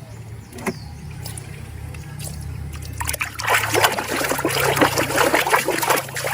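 Water splashing and trickling as a plastic toy animal is rinsed clean, light at first and much busier and louder from about three seconds in, over a steady low hum.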